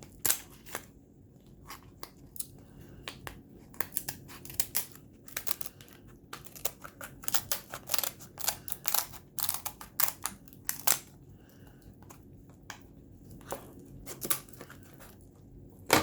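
Close-up eating sounds of a person chewing seafood: many sharp, wet clicks and crackles, busiest in the middle.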